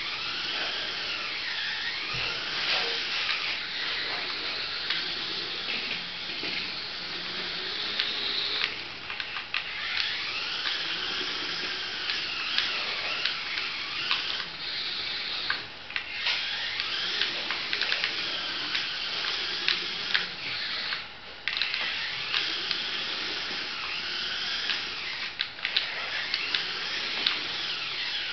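Small toy RC Hummer's electric drive motor whining, the pitch rising and falling as it speeds up and slows, with a couple of brief stops.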